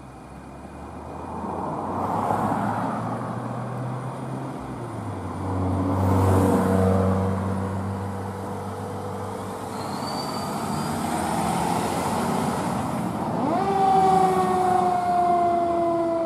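Fire engine's diesel engine running and revving as the rig pulls out and accelerates away. About two-thirds of the way through, its siren winds up sharply to a high tone, then slowly drops in pitch.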